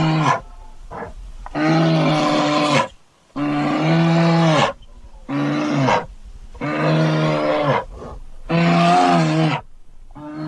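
Brown bear roaring in a run of long, low, steady-pitched calls, about five of them, each lasting around a second with short pauses between.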